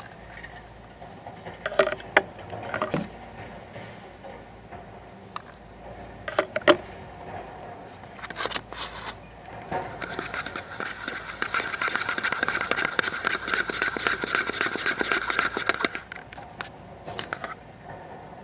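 Metal spoon-spatula clinking and scraping inside a paper cup while stirring primer surfacer with thinner. A few sharp taps come first, then about six seconds of fast, continuous scratching stirring from about ten seconds in, then a few last clicks.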